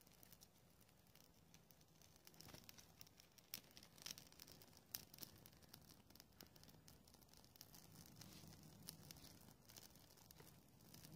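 Near silence, with a few faint scattered clicks and some rustling.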